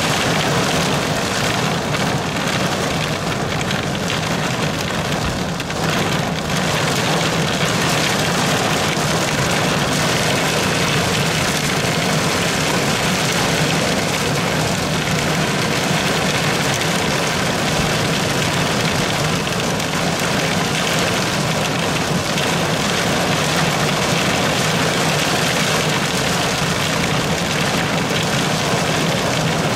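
Heavy rain pelting a car's roof and windows, heard from inside the cabin, with a steady low hum from the car's idling engine underneath.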